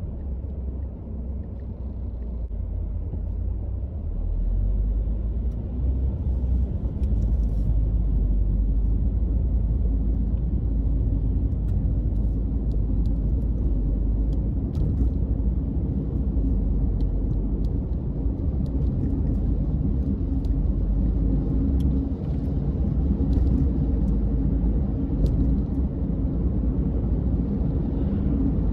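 Car driving along city streets: steady low road and engine rumble that gets louder about four seconds in, with a few faint scattered ticks.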